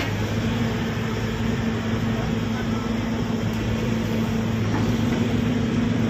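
Sany SY135 excavator's diesel engine running steadily under load, heard from inside the cab while the bucket is worked. Its note steps up in pitch at the start and then holds even.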